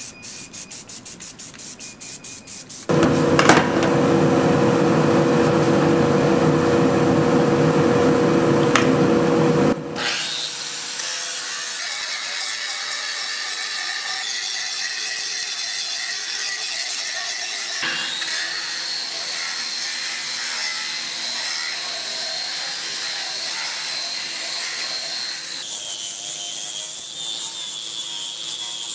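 Angle grinder grinding and polishing the face of a cast-iron swage block: a steady motor whine under the rasp of the disc on metal. It is loudest from about three to ten seconds in, then runs lighter and hissier, and its whine shifts twice. The first few seconds hold a quick rattling, from the spray-paint can being used on the stand.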